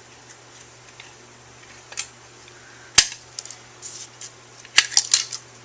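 Sharp clicks and taps from handling a paper crimper and punched paper pieces: one loud click about three seconds in and a quick run of several near the end.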